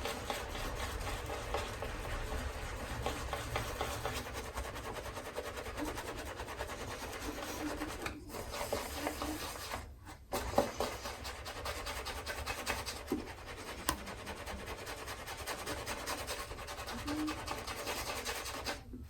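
Maggard two-band shaving brush swirled and rubbed against shaving soap, building a lather. It makes a continuous wet, scratchy rubbing that breaks off twice, briefly, around the middle.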